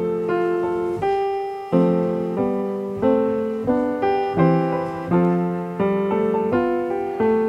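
Piano playing a slow passage of chords, each chord struck and then fading as the next one comes in.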